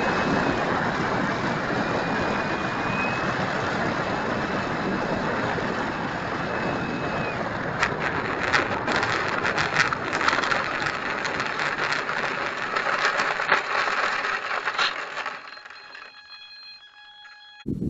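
Electric motor and propeller of an E-flite Carbon-Z RC float plane, heard from a camera mounted on the plane, running steadily as the plane slides across snow, with a thin high whine at first. From about the middle a run of sharp clicks and knocks joins in, and about three seconds before the end the motor cuts off and the noise falls away to a few faint steady tones.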